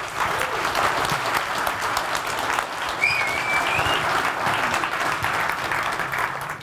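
Large audience applauding, a dense crowd of hands clapping at a steady level, with a brief thin rising tone about three seconds in.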